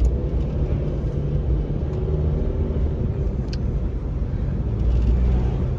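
Dodge Avenger driving, a steady low engine and road rumble, with a brief click about three and a half seconds in.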